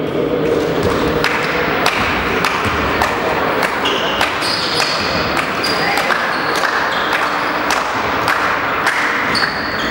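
Basketball game in a hall: the ball bouncing on the court floor in repeated sharp knocks, short high squeaks of sneakers, and players and spectators calling out under the hall's echo.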